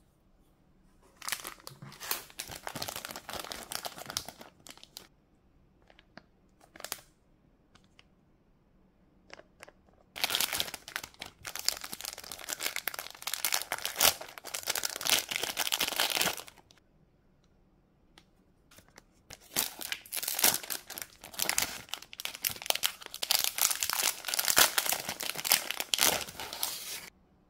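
Thin clear plastic bags around small toy figures being crinkled and pulled open by hand, in three long spells of rustling with quiet pauses between.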